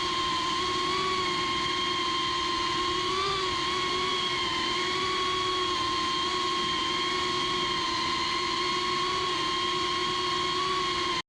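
FPV racing drone's electric motors and propellers whining at a steady pitch, with a brief small rise and fall in pitch about three seconds in. The sound stops abruptly near the end.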